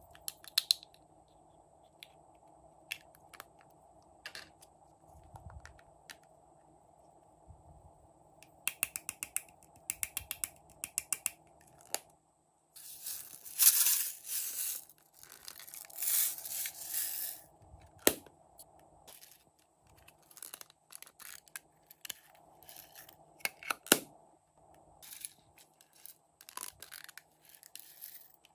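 Small plastic and metal toy containers being twisted and snapped open, with scattered clicks and taps and a quick run of clicks. In the middle comes a longer, louder rustling rush as glitter and sequins pour out of a container.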